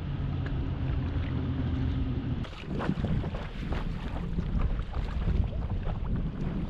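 A steady low drone that stops abruptly a little over two seconds in, then water splashing with wind buffeting the microphone.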